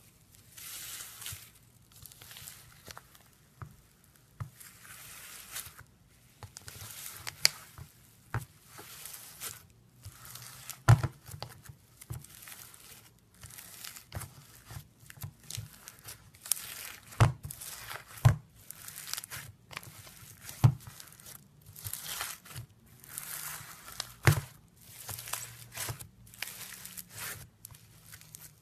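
Hands squeezing and pressing crunchy foam-bead slime: repeated crackling, crunching squeezes about a second each, with several sharp pops as beads burst.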